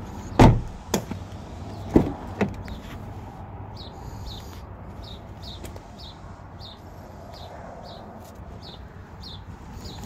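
Doors of a 2017 Ford Escape being handled and shut: four thuds in the first two and a half seconds. After them comes a faint high chirp repeating about twice a second.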